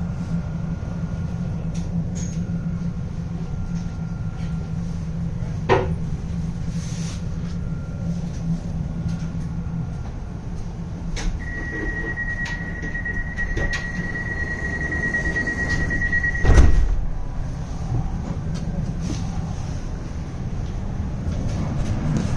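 Inside a tram: a steady low electrical hum fades about ten seconds in. A high door warning tone then beeps for about five seconds, and the sliding doors shut with a thud as it ends.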